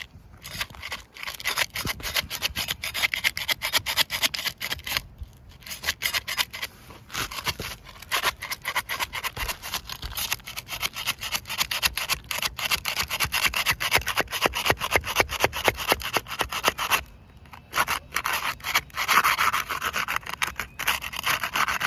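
Rapid, repeated scraping and rubbing as a roof shingle is worked loose, its sealed edge being broken free from the shingle beneath. The scraping pauses briefly twice.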